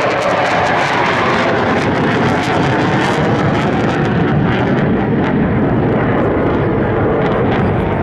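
Sukhoi Su-22M4 fighter-bomber's Lyulka AL-21F-3 turbojet, a loud steady jet roar with a crackling edge as the aircraft flies its display overhead.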